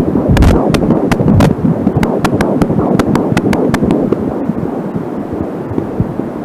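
Audio from an Angelsound fetal doppler: a continuous whooshing, pulsing heartbeat signal at 13 weeks of pregnancy, mostly the fetus's heartbeat. Sharp static clicks crackle over it through the first four seconds or so, then grow sparse; the uploader blames them on the doppler's short audio cable being pulled tight.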